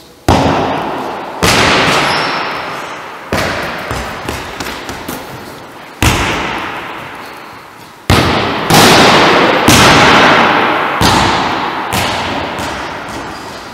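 Volleyball struck by hand in repeated serves and thudding off the floor and walls of a large gym, each hit ringing out in a long echo. About nine sharp thuds, with a few lighter bounces around four to five seconds in.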